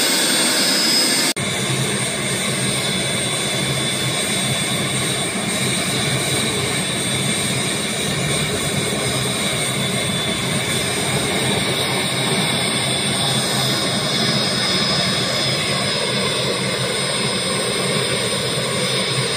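Indian Air Force Cheetah helicopter running steadily: a single-turbine whine with thin high tones over a dense, even rush, with an abrupt cut a little over a second in.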